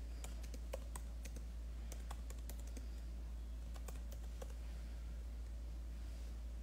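Faint, irregular clicks of typing, several a second in bursts, over a steady low hum.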